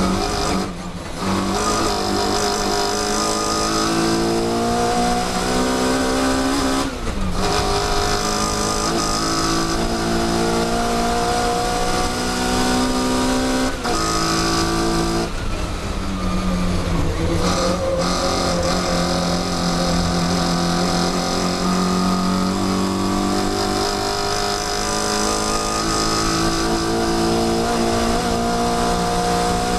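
Mini Cooper S race car's four-cylinder engine at racing speed, recorded onboard. The revs climb through the gears with short cuts and pitch drops at the gear changes, about a second in, about seven seconds in, and three more times between fourteen and eighteen seconds. After that it pulls steadily at high revs, its pitch rising slowly.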